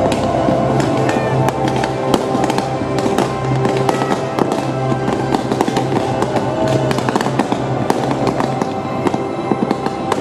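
Aerial fireworks bursting, with many rapid sharp pops and crackles, over loud music with sustained tones.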